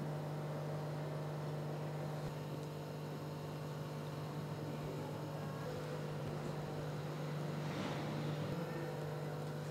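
A steady low hum with a faint background hiss. Any handling of the sandwich pieces on the plate is too soft to stand out.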